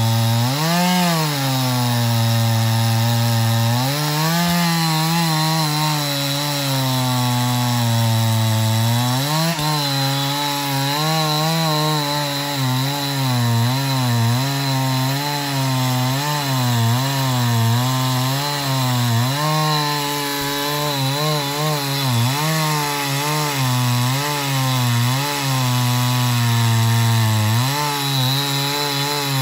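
Two-stroke chainsaw cutting into the trunk of a huge tree. The engine runs steadily, its pitch dipping and rising every second or so as the bar loads and frees in the cut.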